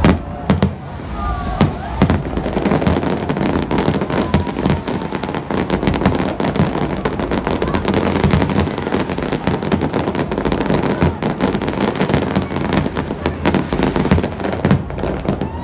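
Aerial fireworks display going off: many shell bursts with sharp bangs in quick succession, layered over one another and thickening after about two seconds.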